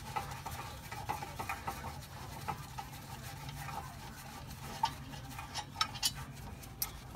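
Faint, scattered metallic clicks and scrapes of a wrench being worked on a brake caliper bracket's back bolt, over a steady low hum. A few sharper ticks come in the second half.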